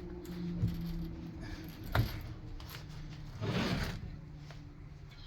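Cast-iron vise parts being handled: a couple of sharp metal clicks and a brief scraping rustle, over a steady low hum.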